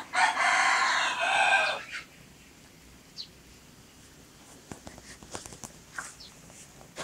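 A young cockerel crowing once, a crow of nearly two seconds that shifts pitch about a second in. Faint clicks and rustles follow.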